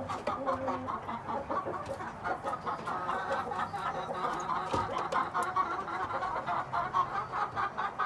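Young chickens clucking, a dense run of short overlapping calls.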